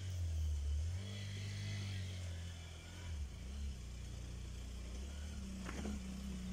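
Hero Impulse motorcycle's 150 cc single-cylinder engine running as the bike climbs a loose, rocky trail, its note stepping down about three seconds in. A short clatter sounds near the end.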